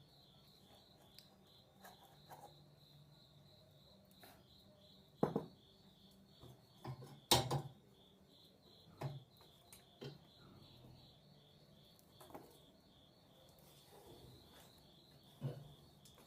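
A cricket chirps steadily in a high pulsing trill of several pulses a second, while a handful of irregular knocks and clatters from handling tools break in, the loudest about seven seconds in.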